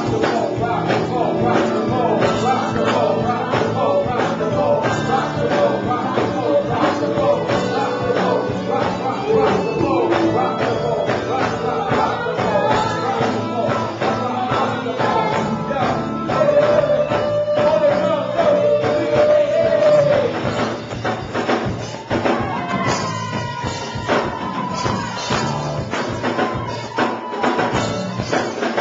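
Live soul band playing: a drum kit and electric bass keep a steady groove while a man and a woman sing into microphones.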